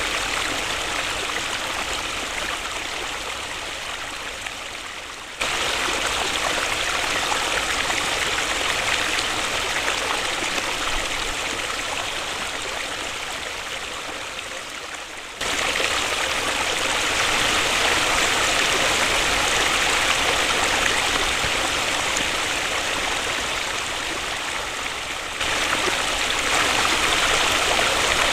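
Waterfall, with water rushing and splashing in a steady hiss. The loudness sags slowly and then jumps back up abruptly about every ten seconds.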